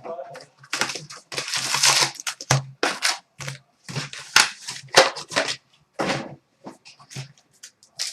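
Wrapping on a box of hockey trading cards being torn and crinkled open by hand: a string of short, irregular ripping and crackling sounds with brief gaps between them.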